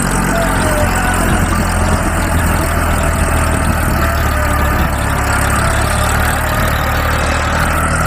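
A vehicle engine running steadily, with a continuous low hum.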